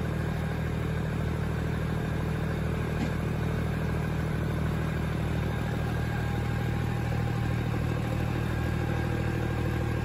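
Heavy machinery engine running steadily at low, even speed, with a faint knock about three seconds in.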